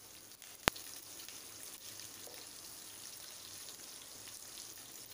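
Cumin seeds, chopped ginger and green chillies sizzling gently in hot oil and ghee in a pan, with a single sharp click less than a second in.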